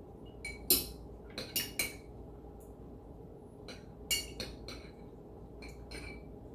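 Utensil clinking and tapping against dishware: about a dozen light, sharp clinks in two clusters, one in the first two seconds and another in the latter half, while sandwich toppings are being handled.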